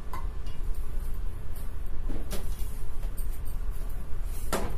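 Pearl millet (bajra) dough being kneaded by hand in a steel plate, with a few sharp knocks of hand and dough against the plate, over a steady low rumble.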